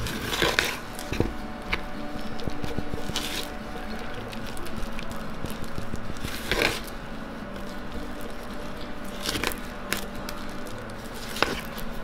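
Paper mache clay being stirred in a plastic mixing bowl: a utensil scraping and squishing through the thick paste, with about five louder scrapes against the bowl.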